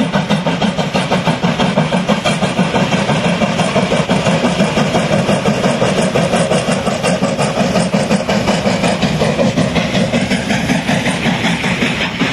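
FS class 740 two-cylinder 2-8-0 steam locomotive working hard past, its exhaust beating in rapid, even chuffs, about four a second, with its train of coaches rolling behind.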